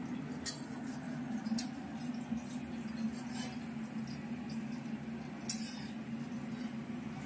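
Kitchen background: a steady low hum with three brief, sharp clicks, about half a second, a second and a half and five and a half seconds in.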